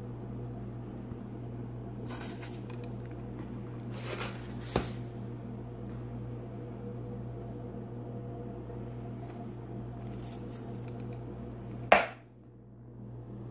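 Ground coffee being scooped from a plastic tub and tipped into a paper filter in a drip coffee maker's basket: a few short rustling pours and a light tap, over a steady background hum. A sharp knock near the end.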